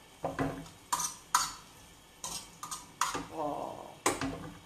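A metal fork scraping and clinking against a frying pan while tossing fresh pasta in tomato sauce: about seven sharp strokes at uneven intervals.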